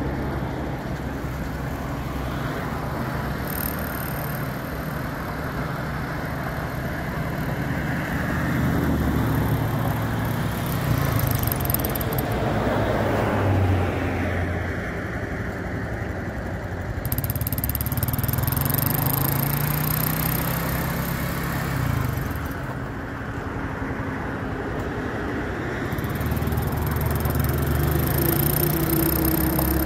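2001 Honda Foreman Rubicon 4x4 ATV's single-cylinder engine running while the quad is driven, its pitch rising and falling several times as the throttle is opened and eased off.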